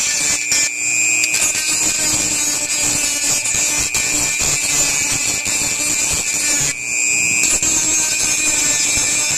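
Dremel rotary tool with a grinding bit spinning at high speed inside a pinball lamp socket, scouring the socket's inside clean: a steady high whine with grinding noise, dipping briefly twice.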